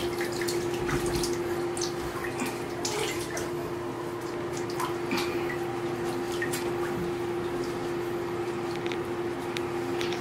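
Bathwater splashing and dripping in a bathtub as a wet puppy is washed by hand, with scattered small splashes and drips over a steady low hum.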